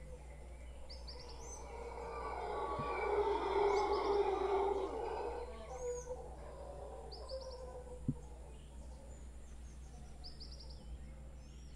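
Mantled howler monkeys roaring hoarsely, swelling up about two seconds in and fading away by six seconds. Throughout, a bird gives short high chirps every couple of seconds, and there is a single knock about eight seconds in.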